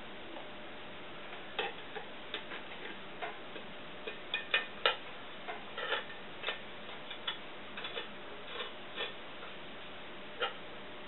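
Small metallic clicks and taps at irregular intervals from a tin can being handled as bolts are fitted through its wall, with a cluster of sharper taps about four to five seconds in.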